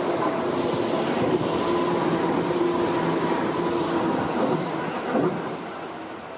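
Seibu 4000-series '52 Seats of Happiness' train passing close by: a steady loud rumble of wheels on rail with a faint steady whine running through it. About five seconds in there is a brief swoop in pitch, and then the sound drops away.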